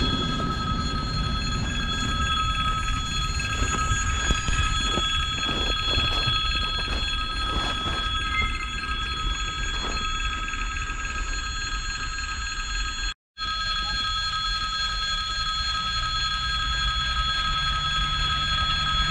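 Freight train of hopper wagons rolling away, its wheels clacking irregularly over rail joints for the first ten seconds or so over a low rumble. A steady high ringing of several pitches runs throughout, and the sound drops out for a moment about 13 seconds in.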